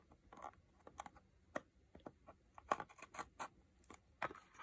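Scissors cutting and scraping at the seal of a small cardboard product box, with irregular clicks and scratches of the cardboard being handled, busiest in the middle.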